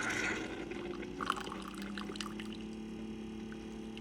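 Keurig single-serve coffee maker brewing, coffee streaming and splashing into a cup, with a tone that rises slowly as the cup fills and then a steady hum.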